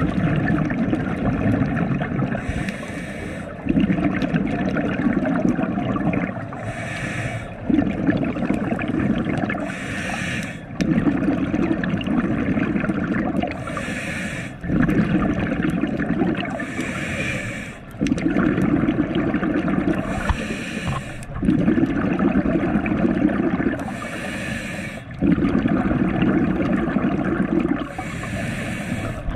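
Scuba diver breathing through an open-circuit regulator underwater: a short hissing inhale, then a longer gurgling rush of exhaled bubbles, in a regular cycle repeating about every three and a half seconds.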